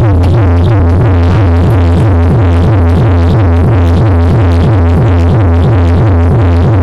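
Electronic dance music played very loud through a DJ sound system of two subwoofers and two JBL top speakers. A heavy, constant bass sits under a fast repeating synth pattern of falling notes.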